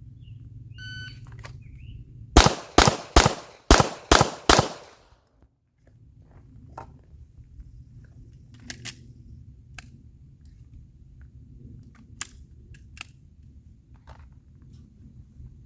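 A shot timer's start beep, then six handgun shots in quick succession over a little more than two seconds: a draw-and-fire string of three rounds on each of two targets. Faint handling clicks follow.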